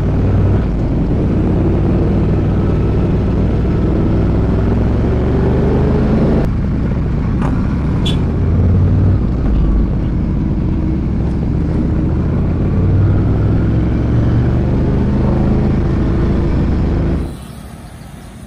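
Ducati Multistrada 1200S's L-twin engine running under way, its pitch climbing several times as the bike accelerates. The sound drops off suddenly near the end.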